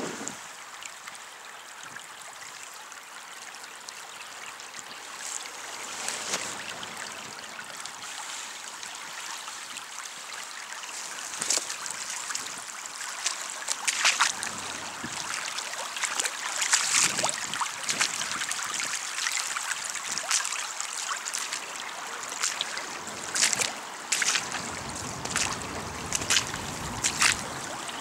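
Floodwater running in a shallow stream over a paved footpath, a steady rushing trickle. From about halfway through, brief louder splashes come every second or two.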